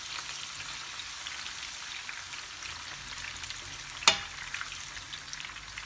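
Chopped onion and bell peppers sizzling in hot oil in a pan, a steady hiss with fine crackling. A single sharp knock comes about four seconds in.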